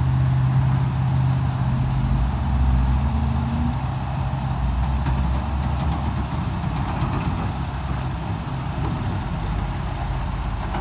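Road traffic from a nearby highway: a truck engine's steady low hum, giving way after about four seconds to an even low rumble.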